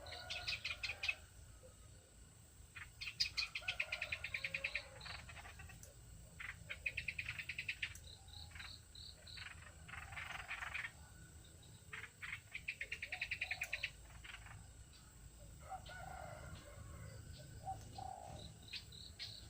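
Small songbirds calling: bursts of rapid chattering notes every few seconds, with softer, lower notes between them, over a faint low rumble.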